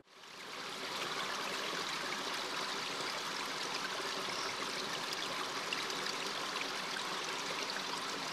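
Running water of a shallow river flowing over rocks, a steady hiss that fades in over the first second.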